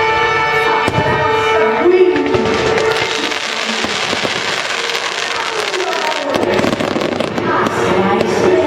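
Fireworks bursting over an orchestral show soundtrack, with a few sharp bangs early on. About two and a half seconds in, the music gives way to a dense spell of crackling that lasts a few seconds before the music comes back near the end.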